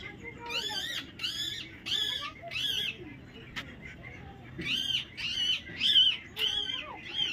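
A bird calling: a repeated high, arched note about twice a second, in two runs of five or six calls with a short pause between them.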